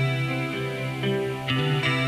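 Steel-string acoustic guitar playing chords in an instrumental passage, with a fresh strum about one and a half seconds in.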